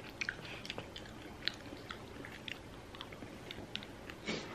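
A person chewing food close to the microphone: small scattered wet clicks and crunches from the mouth.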